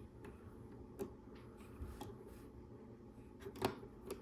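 A few small, sharp clicks and taps of LEGO Technic plastic parts being handled, over a faint steady background. The loudest click comes about three and a half seconds in.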